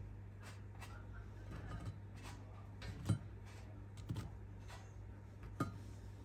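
A few light clicks and small knocks of butter cookies being handled and shifted in a bowl, the loudest about three seconds in, over a steady low hum.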